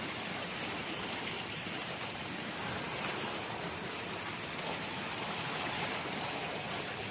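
Steady rush of water flowing in a stream.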